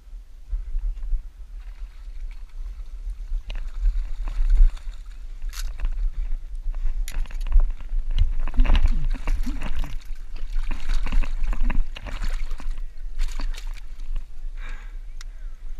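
A hand splashing and grabbing in shallow water between rocks, trying to catch a trout by hand. The splashing comes in irregular bursts with knocks and scrapes, starting about three and a half seconds in, over a steady low rumble.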